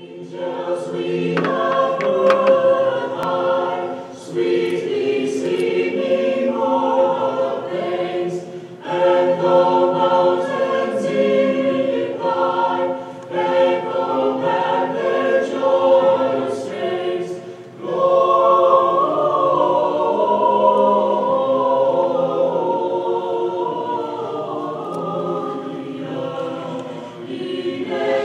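A choir sings a hymn in phrases of a few seconds each, with short breaks between phrases.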